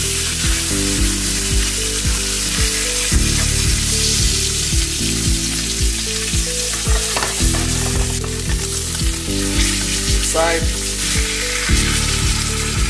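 A salmon fillet sizzling in hot oil in a frying pan, a steady hiss. Background music with a steady beat plays underneath.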